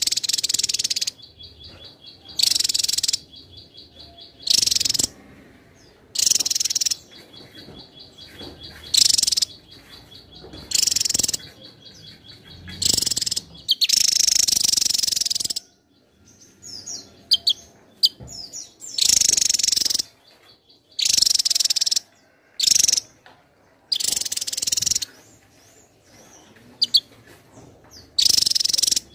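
Javan tesia singing: loud, high, rushing song phrases about a second long, repeated roughly every two seconds, with a fainter rapid ticking trill between some of the phrases.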